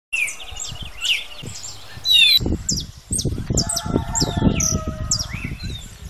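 A dense chorus of many small birds chirping in short, quick descending notes, with a low rumble and thumps underneath from about two and a half seconds in.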